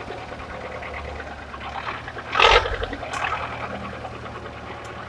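A heavy off-road truck's engine running steadily as it crawls through boggy ground. About two and a half seconds in, a short, loud splash of water and mud comes from the wheels.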